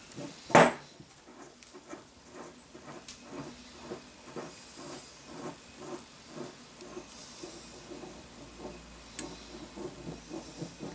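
Steel ball screw and its aluminium nut being handled on a cloth-covered table. A sharp knock comes about half a second in, then soft, evenly repeating ticks about twice a second over a faint hiss.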